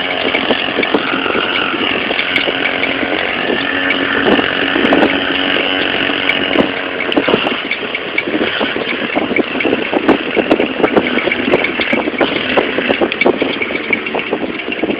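Small pocket bike engine running steadily at speed, with irregular buffeting over it.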